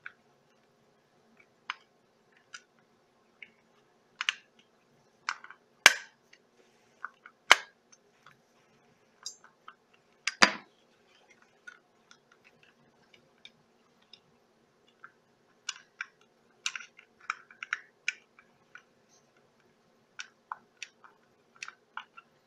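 Irregular sharp clicks and taps of an old HO scale model locomotive's plastic body shell being worked loose from its snap clips by hand. The loudest clicks come about six and ten seconds in, with a cluster of quicker ones later.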